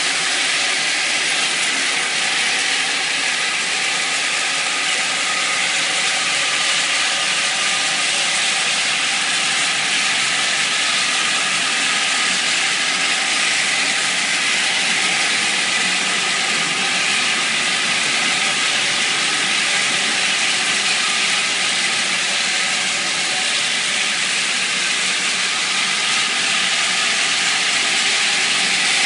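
SX-12 rotary tile-and-grout cleaning tool spraying hot water and sucking it back up through its vacuum hose as it moves over ceramic tile: a steady loud hiss of spray and suction with a faint machine hum beneath.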